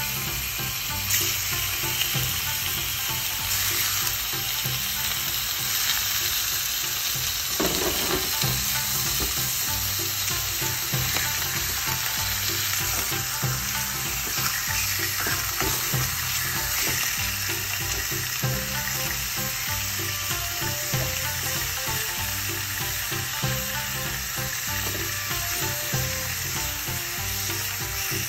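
Thin slices of pork sizzling and crackling steadily in hot oil in a frying pan as they fry, with a few light clicks.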